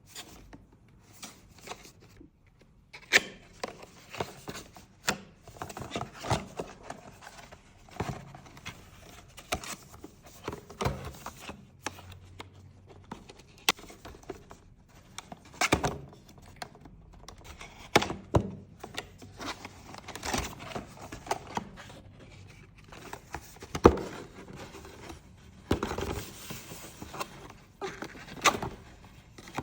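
Hands unboxing and handling cosmetics packaging: irregular sharp taps and clicks of boxes and product containers being set down and opened, with softer rustling and scraping in between. The loudest knock comes a little past the middle.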